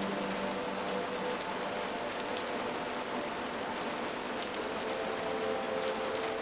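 Steady rain falling, with a few faint held tones underneath.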